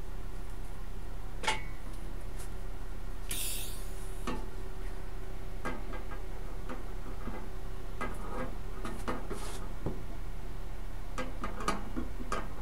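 Light metallic clicks and knocks from handling tools and sheet metal at a welding bench, over a steady electrical hum. A short hiss comes about three and a half seconds in.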